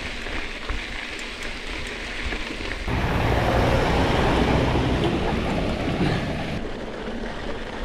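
Mountain bike tyres rolling on a gravel road. From about three seconds in, a pickup truck passes close by on the gravel, its engine and tyre noise louder for a few seconds before dropping away.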